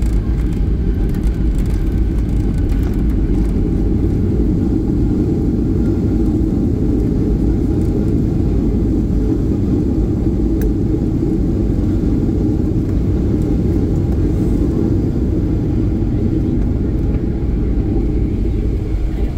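A steady, loud low rumble inside a jet airliner's cabin during the landing rollout, as the plane slows along the runway with its spoilers up.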